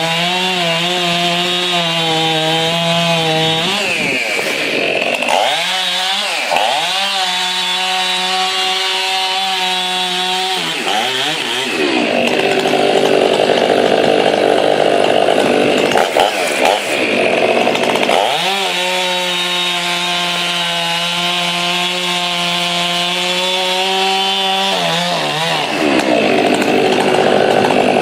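Big ported two-stroke chainsaw running at full throttle and cutting wood. Its high, steady engine note is broken several times by dips in pitch and rougher stretches as the chain bites into the wood.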